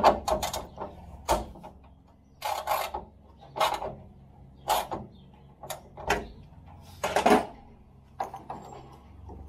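Socket ratchet working a bolt inside a steel van door: a short burst of ratchet clicks with each back-swing of the handle, about once a second.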